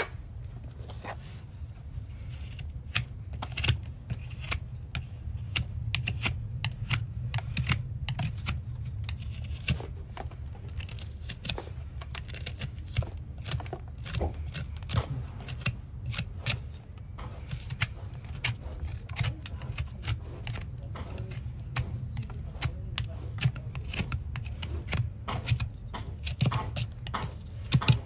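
Farrier's hoof knife paring the sole of a horse's hoof: a quick, irregular run of short slicing and scraping strokes and clicks as horn shavings come away.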